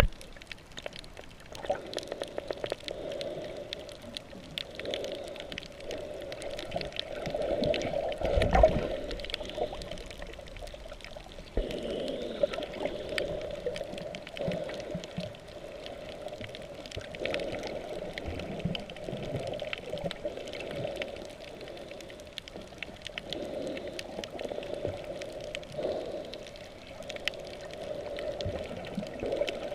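Underwater sound through a GoPro's waterproof housing: muffled, uneven sloshing and rushing of water with a scatter of faint clicks throughout, and a louder low surge about eight seconds in.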